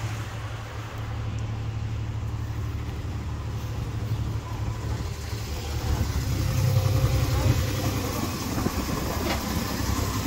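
Miniature railway locomotive's engine idling, a steady low drone that grows louder about six seconds in.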